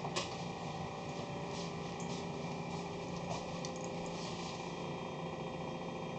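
A light knock near the start, then a few faint scattered clicks and taps from handling kitchen items, over a steady low room hum.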